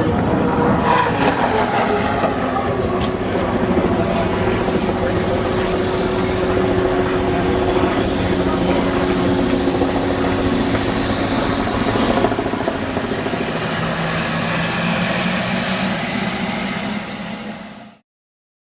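Turbine-powered unlimited hydroplane running at speed, a steady whine with a low drone beneath it. About two-thirds of the way through, high whining tones climb in pitch, and the sound cuts off abruptly near the end.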